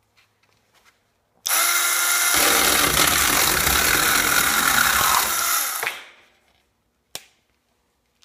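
Homemade 12-volt electric chainsaw, driven by a Bear Claw winch motor and running a Poulan chain and bar, starts suddenly and cuts through a board held in a vise. It runs about four seconds and then winds down. A single sharp click follows near the end.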